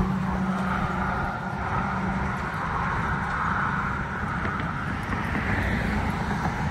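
Road traffic going by: steady tyre and engine noise from passing cars, with one car's low engine hum fading away in the first two seconds or so.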